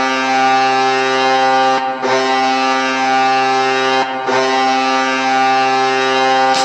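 Hockey arena goal horn sounding in long, steady blasts, breaking briefly about two and four seconds in.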